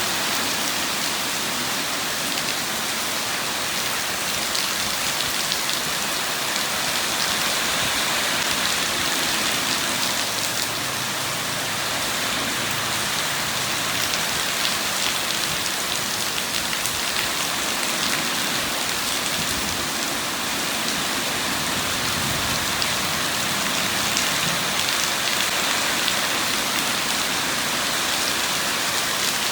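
Steady rain falling: an even, dense hiss of many drops that holds at the same level throughout.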